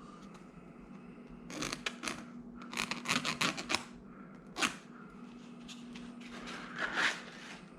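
Plastic vertical-blind slats being handled and marked with a pen: several bunches of short scrapes and clicks, with one sharp click about halfway through, over a faint steady hum.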